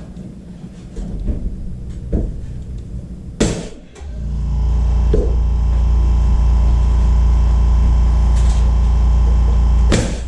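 A steady low machine hum, loud from about four seconds in, with a sharp knock about three and a half seconds in and another near the end.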